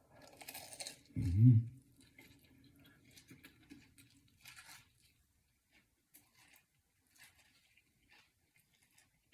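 Chewing of a crispy fried chicken sandwich, with soft wet crunching and mouth clicks, and a short voiced grunt about a second in. The chewing thins out to a few faint clicks after about five seconds.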